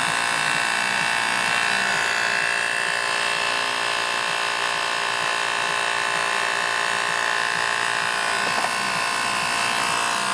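Portable electric tire-inflator compressor running steadily while pumping up a car's spare tire, working close to its 50 psi maximum.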